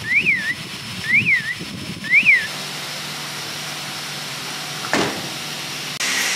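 Electronic beeper on a coffee capsule filling machine giving rising-and-falling chirps about once a second, which stop a little over two seconds in. The machine then runs with a steady hum, one knock a few seconds later, and a louder burst of hiss near the end.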